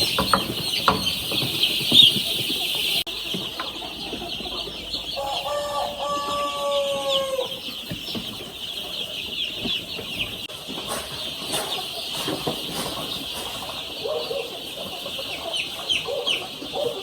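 Many young chicks peeping together in a continuous high chorus. About five seconds in, a single longer, slightly falling call from a chicken stands out for a couple of seconds.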